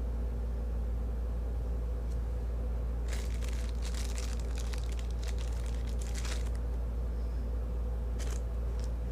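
Packaging being handled: crinkling and rustling from about three seconds in for some three seconds, and a short rustle again near the end, over a steady low hum.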